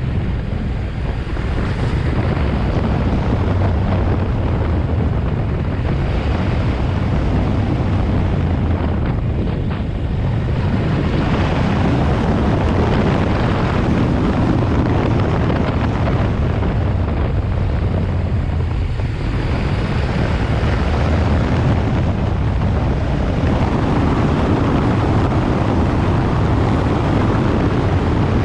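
Yamaha Ténéré 700's parallel-twin engine running under way, with heavy wind noise on the microphone. The engine sound dips briefly three times: about a second in, near ten seconds and near nineteen seconds.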